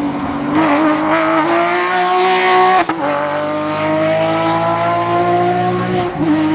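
Porsche 911 GT3 rally car's flat-six engine under hard acceleration, its pitch climbing, broken by a quick upshift about three seconds in, then climbing again until it drops near the end.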